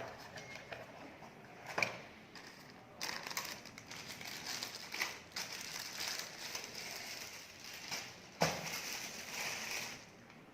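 Packaging crinkling and rustling as it is handled, in uneven stretches, with a louder stretch starting suddenly about eight seconds in.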